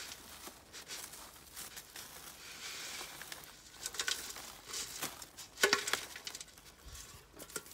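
Compost pouring out of a metal bucket onto the plastic bin-bag lining of a basket, soil sliding and dropping onto the plastic, with a few louder knocks near the end.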